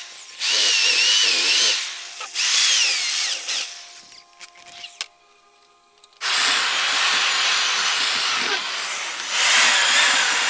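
Hand-held electric rotary tool cleaning out the exhaust port of a motorcycle cylinder head. It runs in two short bursts, stops for about two seconds, then runs again steadily, its motor pitch wavering as it bears on the metal.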